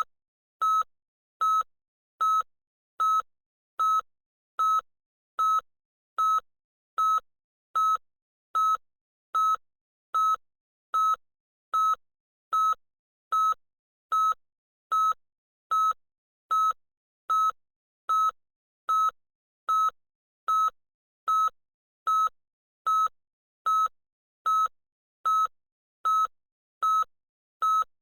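Loud electronic beeping: short beeps of a single steady pitch, repeating evenly a little more than once a second without a break.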